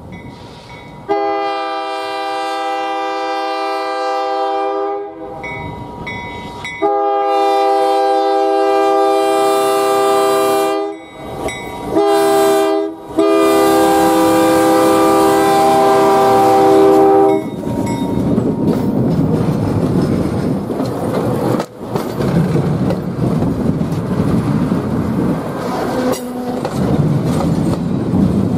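Former Illinois Central GP10 diesel locomotive blowing its multi-note air horn in four blasts, long, long, short, long: the standard grade-crossing signal. It passes close by, and the coaches and caboose then roll past with steady wheel-on-rail noise.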